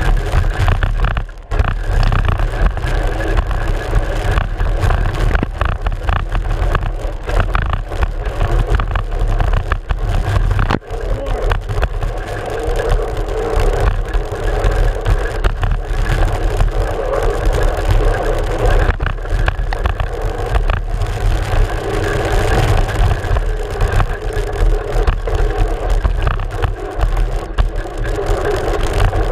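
Mountain bike riding fast over rough dirt trail, heard from a GoPro mounted on the front fork: a constant rush of wind and tyre rumble with continual rattling and knocks from the fork and the mount. The noise briefly drops out twice, once early on and again about eleven seconds in.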